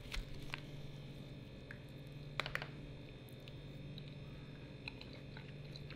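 Quiet room with a steady low hum and a few faint clicks and scrapes of a metal spoon in a foil tray of apple crumble while eating, the loudest cluster about two and a half seconds in.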